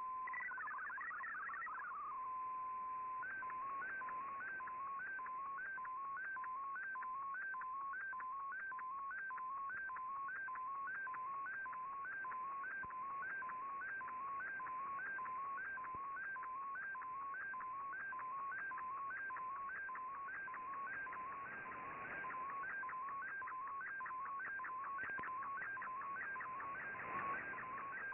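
Shortwave radio audio of an fldigi MFSK digital picture transmission, over a steady hiss of radio noise. It opens with a short warble of data tones and a steady beep. Then a tone pattern repeats about twice a second as a colour image is sent line by line.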